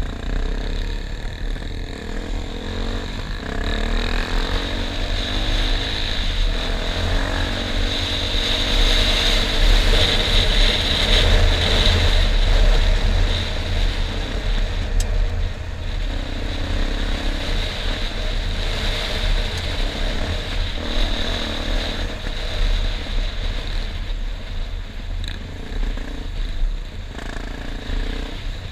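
Enduro motorcycle engine running while riding, its pitch rising and falling with the throttle, over a constant heavy low rumble.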